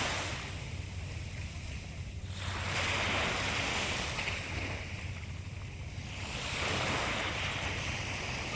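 Sea waves washing onto the shore, each surge rising and falling away, about one every four seconds, over a steady low rumble.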